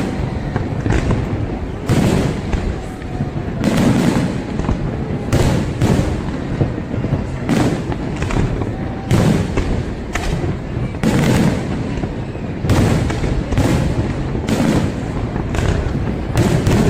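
Fireworks display: a continuous run of aerial shell bursts, a bang every second or so, over a steady low rumble of crowd and echoing explosions.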